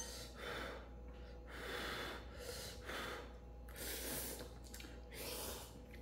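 Ramen noodles being slurped: about five noisy, airy slurps roughly a second apart.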